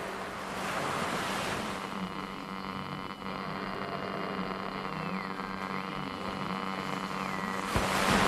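Ocean surf washing, with a low steady hum under it and a thin high tone that slides down and back up twice; it all grows louder near the end.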